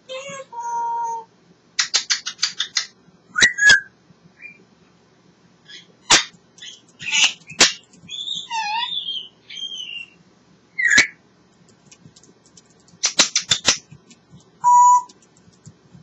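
African grey parrot vocalising in short separate calls. It gives steady single-note whistles near the start and near the end, runs of rapid clicks about two seconds in and again near the end, and a wavering warble in the middle.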